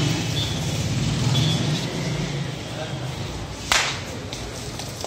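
Indistinct murmur of voices over a low background rumble, broken about three and a half seconds in by one short, sharp swish of noise that is the loudest sound.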